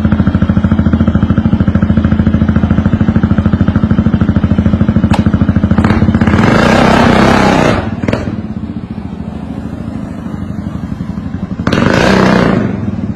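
An engine running with a fast, even beat, joined twice by a loud burst of rushing noise, first about halfway through and again near the end; after the first burst the engine runs quieter.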